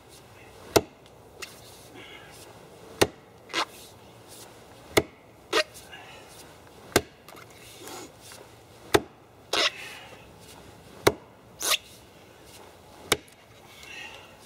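Axe chopping into a tree stump's taproot. Seven sharp strikes come about two seconds apart, several of them followed half a second later by a softer knock.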